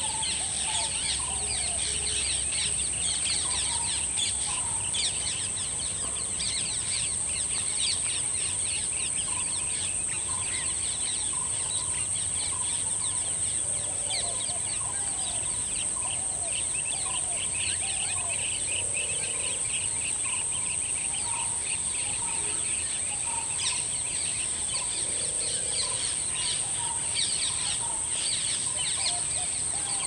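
Dense chorus of small birds chirping and twittering, with occasional lower calls, over a steady high-pitched hum.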